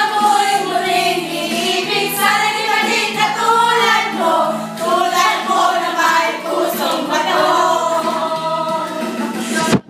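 A group of women singing a song together in unison, cutting out briefly at the very end.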